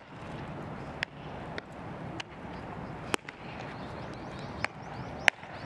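Baseballs landing in leather gloves during a game of catch: about six sharp, short pops at irregular intervals of roughly a second, the loudest near the end.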